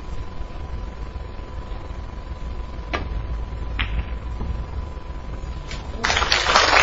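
Snooker balls clicking: a sharp click as the cue strikes the cue ball, then a second click under a second later as it hits an object ball. About six seconds in the audience breaks into loud applause.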